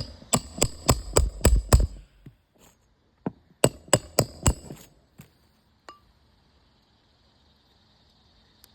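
Hammer striking metal with a bright ring: a quick run of about seven blows, then after a short pause four more.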